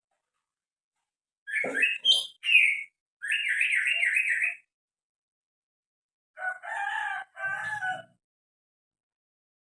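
A green leafbird (cucak ijo) calling. First come a few short, sharp notes, then a fast warbling trill, and near the end two harsher, rasping calls.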